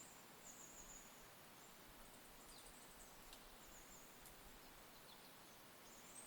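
Near silence in a forest at dawn, broken by faint, very high-pitched chirps of small songbirds, a few short phrases and falling notes, with a couple of faint ticks.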